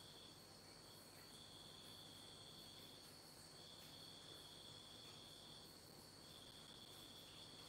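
Near silence with faint insects chirring: one steady high trill, and a second trill that comes in stretches of about two seconds with short breaks.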